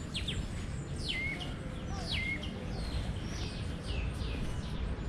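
Bird calling repeatedly: sharp down-slurred whistled notes, some ending in a short flat note, over a low steady rumble.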